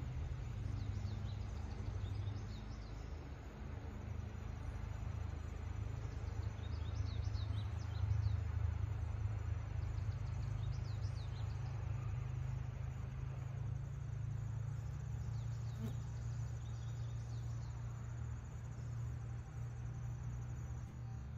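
Outdoor ambience: birds chirping in short bursts every few seconds over a steady low rumble.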